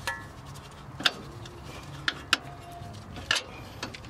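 A handful of sharp, irregular metal clicks and clinks as steel suspension bolts are worked by hand out of the strut-to-knuckle bracket, one near the start ringing briefly.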